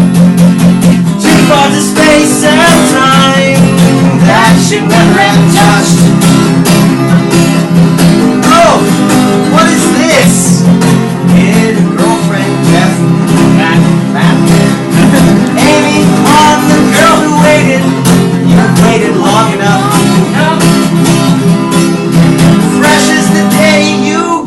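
Acoustic guitar strummed steadily with a voice singing a melody over it.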